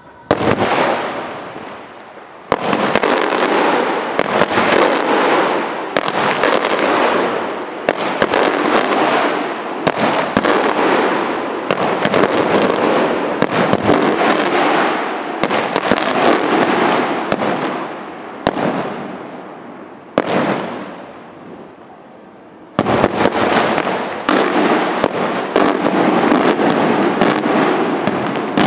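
Aerial firework shells bursting one after another, about every two seconds, each sharp bang trailed by a long crackle that fades away. A short lull comes about 21 seconds in, then the bursts resume.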